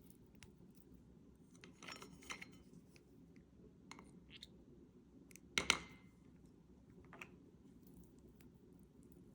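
A few light clicks and clinks of small hard objects in a quiet room, the loudest a little past halfway.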